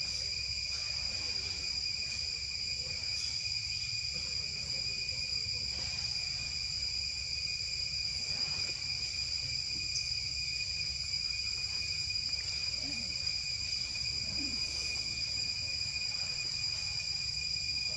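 Steady high-pitched insect chorus, crickets or cicadas holding a few unbroken tones, over a low steady rumble.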